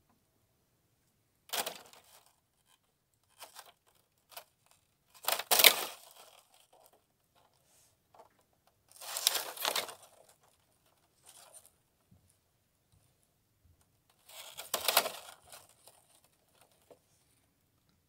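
Thin sheets of surface ice on water being broken and handled by hand: four main crackling, crunching bursts a few seconds apart, the loudest about five and a half seconds in, with small clicks between them.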